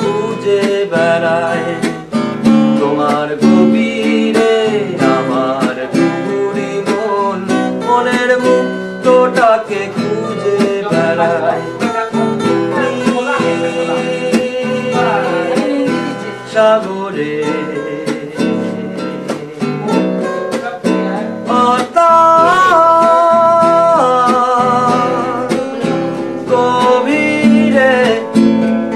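A song with strummed acoustic guitar and a voice singing a melody.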